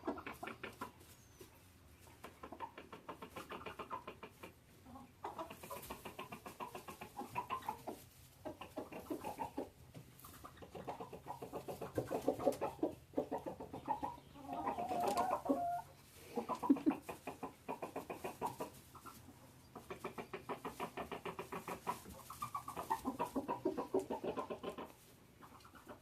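Chicken clucking and cackling in long runs of rapid repeated notes, with short pauses between runs and a louder outburst about fifteen seconds in. The keeper takes it for a fuss over a freshly laid egg.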